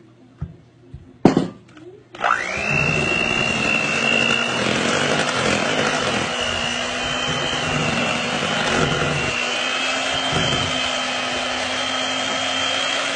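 A couple of sharp knocks, then an electric hand mixer is switched on about two seconds in, its whine rising as it spins up, and runs steadily, its beaters working chocolate cake batter in a glass bowl.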